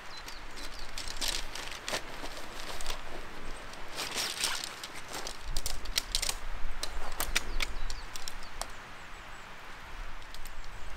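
Camping gear being handled: rustling of a nylon pack and tarp, with many sharp clicks and clinks as a thin metal folding stand is pulled out and opened into a tripod.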